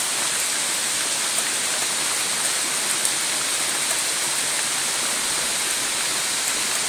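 Steady rain falling during a thunderstorm, an even hiss with a few faint drop ticks.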